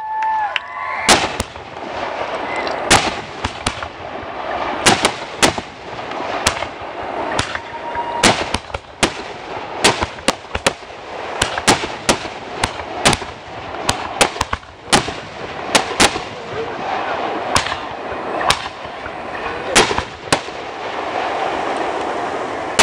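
Aerial firework shells bursting one after another: a long string of sharp bangs, sometimes two or three a second, over a steady rumble of echo between them.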